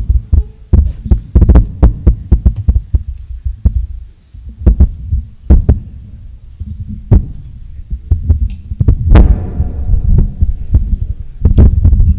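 Heavy low thuds and knocks from a desk microphone being bumped and handled as the speaker gets up and moves around it. They come in an irregular run, with a quieter stretch partway through and one stronger knock with a short ring about nine seconds in.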